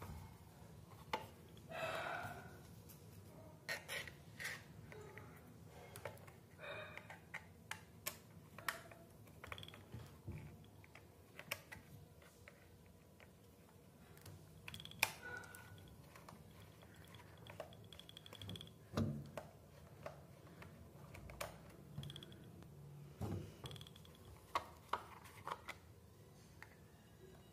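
Hard plastic multimeter case handled and opened with a screwdriver: scattered small clicks and taps of plastic and metal, with a few brief scrapes.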